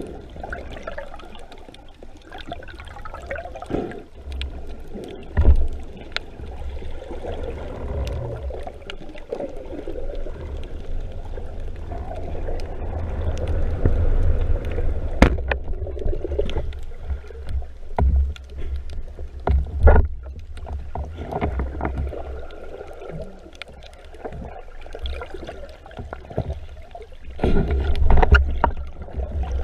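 Underwater sound through an action camera's housing in shallow sea water: a steady low rumble and gurgling of moving water, with scattered sharp clicks and knocks, growing louder near the end.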